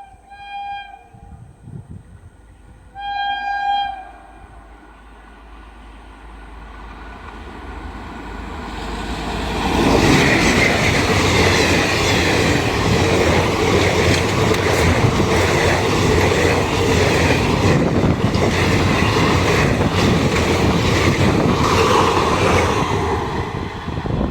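Train horn giving two blasts of about a second each, a few seconds apart. Then a train draws near and runs past close by, a loud rush and rattle of wheels on the track that builds up and stays loud to the end.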